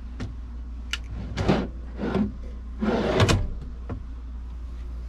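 Non-slam (soft-close) camper kitchen drawers sliding on their runners, worked several times in short strokes, the loudest a little after three seconds in.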